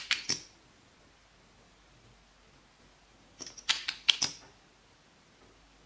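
A plastic makeup tube being opened and worked in the hands close to the microphone. It gives two short bursts of sharp plastic clicks and crackles, one at the very start and another about three and a half seconds in.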